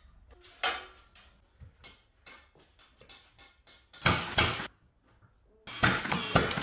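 Cordless 18-gauge brad nailer firing 1 1/4 inch brad nails into plywood panels: two sharp shots about four seconds in and a quick run of several more near the end. Lighter knocks of the plywood panels being handled come between.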